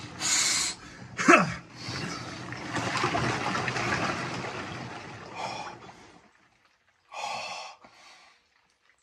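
A person gasping from cold shock while lowering into an ice bath: sharp breaths, then a short cry that falls in pitch about a second in. Icy water and ice chunks slosh for a few seconds after, and two heavy breaths come near the end.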